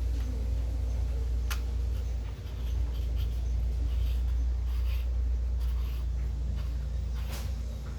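Light scraping and a few sharp clicks, as of metal parts being handled and worked, over a steady low hum.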